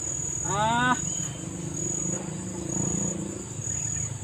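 Steady high trilling of insects, pulsing on and off about once a second, over the even rush of a fast-flowing river. About half a second in, a brief tonal sound sweeps upward in pitch.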